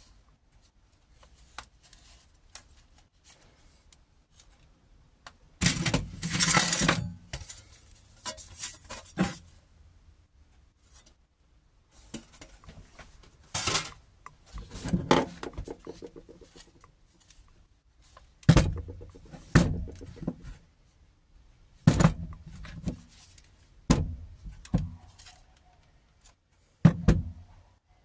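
Handling noises of a Parkside 12 V cordless jigsaw and small parts on a workbench: scattered clicks, knocks and rattles as they are picked up, turned over and set down. The loudest clusters come about six seconds in and several times from about eighteen seconds on.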